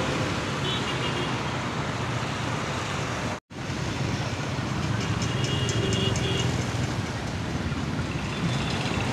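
Road traffic noise: a steady rush of vehicles with a low rumble, cut off briefly about three and a half seconds in.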